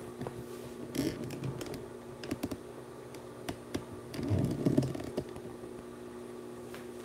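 Faint, irregular light clicks and taps over a steady low electrical hum, with a brief muffled rustle about four seconds in.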